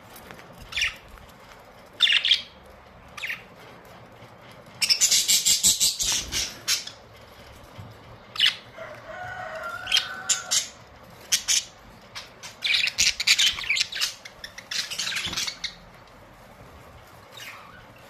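A flock of caged budgerigars chirping and chattering in short, sharp bursts, busiest about five to seven seconds in and again around thirteen to fifteen seconds.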